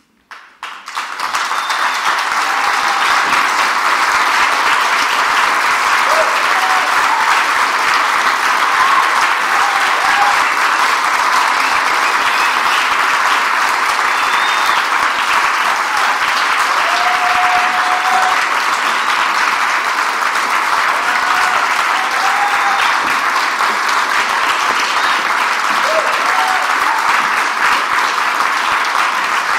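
Audience applause that starts suddenly out of silence and then goes on steadily, with a few voices calling out over it.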